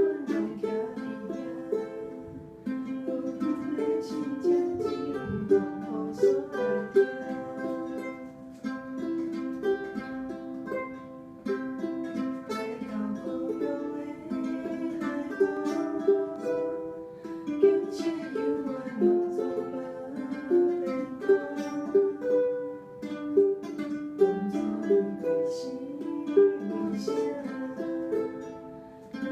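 Ukuleles played together in a small room, one picking a melody over strummed and plucked chords.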